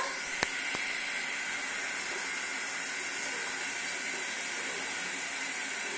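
Shower spray running, a steady even hiss of falling water, with a single sharp click about half a second in.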